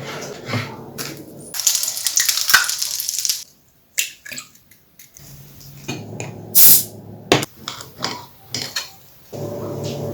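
Household and kitchen handling sounds cut together: a rushing spray for a couple of seconds, then scattered clicks and knocks of dishes and utensils, a short loud rush, and a steady hum starting near the end.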